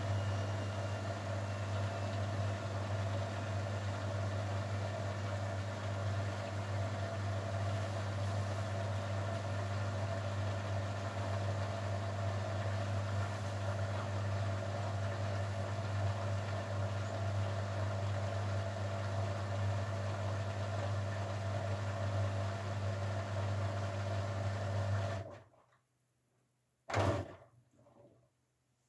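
Grundig Mini 14 washing machine running with a steady hum that cuts off abruptly near the end, followed by a single short click.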